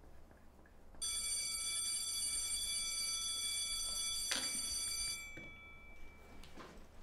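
A bell rings with a steady high tone, starting about a second in and holding for about four seconds before dying away; it signals the end of the class. A short knock sounds about four seconds in.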